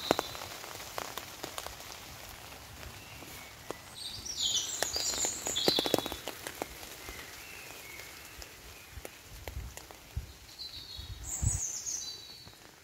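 Rain dripping onto a thin DD Superlight tarp overhead as scattered irregular taps. A bird sings a few short high chirping phrases about four seconds in and again near the end.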